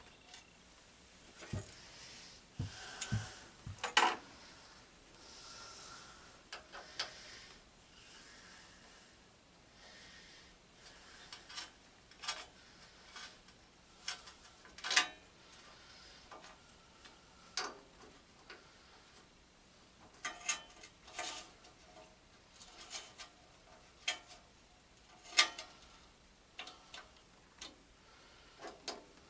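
Hand work on garden tractor parts: scattered clicks, clinks and short scraping and rubbing sounds of parts and tools being handled, with sharper clicks about 4, 15 and 25 seconds in.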